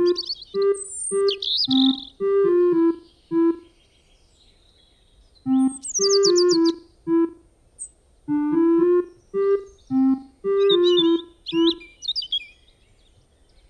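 Background music: a simple tune of short separate notes on a piano-like keyboard, played in phrases with pauses of a second or two, with high bird-like chirps over it.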